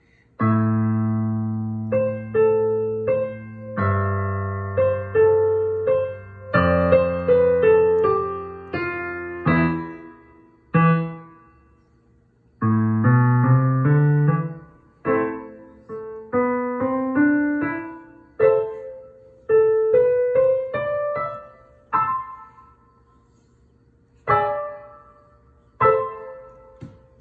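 A child playing a slow piece on a digital piano: a melody over held bass notes, in phrases with short pauses about ten and twenty-two seconds in.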